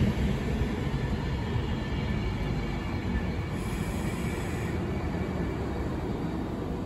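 An Avanti West Coast electric train running past a station platform: a steady rumble of wheels on rail and running gear. A faint high whine fades out in the first second or two.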